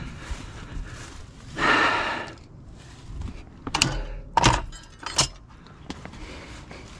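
Metal scrap parts being handled: a brief scraping rush, then three or four sharp metal clanks and knocks with a short ring.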